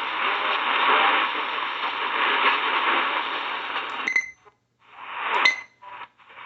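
AM radio receiver playing static and interference noise, hissy and narrow like a broadcast band. About four seconds in the signal cuts out twice to near silence, each cut marked by a short sharp blip, before the noise returns.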